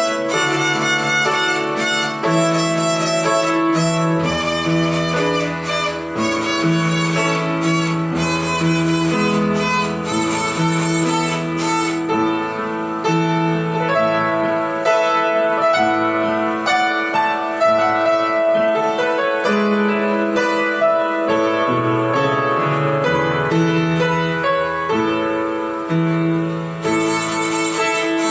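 Violin playing a melody, with lower accompaniment notes changing every second or two underneath.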